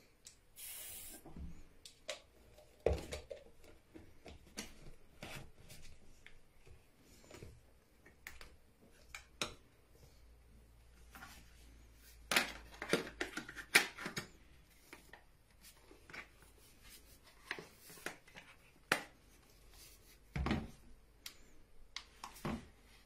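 Hands handling plastic soap containers and a soap dispenser: scattered clicks, knocks and rubbing, with a brief hiss near the start and a cluster of louder knocks about halfway through.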